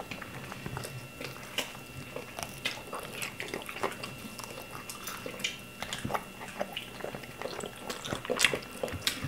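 Close-up eating sounds of two people eating with their hands: chewing, lip smacks and small wet clicks, one of them gnawing on a buffalo chicken wing. The smacks come irregularly and cluster more densely about eight to nine seconds in.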